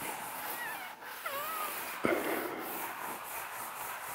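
Felt board eraser rubbing across a green chalkboard in quick, even back-and-forth strokes, with a few faint high squeaks and a single knock about two seconds in.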